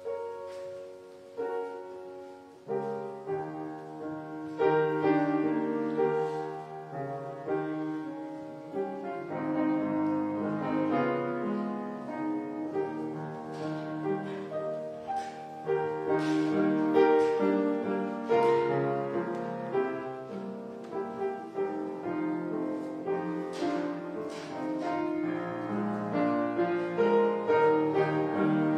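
Solo keyboard music, slow, with held chords under a melody line. It starts softly and grows louder a few seconds in.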